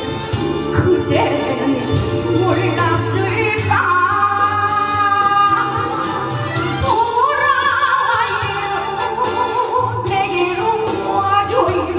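A woman singing into a handheld microphone over instrumental accompaniment, holding long notes with vibrato a few seconds in and again past the middle.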